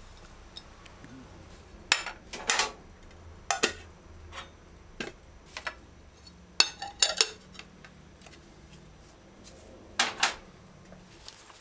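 Ceramic plates and bowls clinking and knocking together as they are lifted, stacked and set down on a countertop: a string of separate clinks a second or so apart, with a quick cluster in the middle and another near the end.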